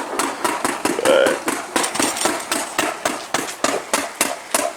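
Roof work: a rapid, irregular run of sharp knocks and cracks, several a second, from roofers' hand tools striking and prying at the old roof during a shingle tear-off.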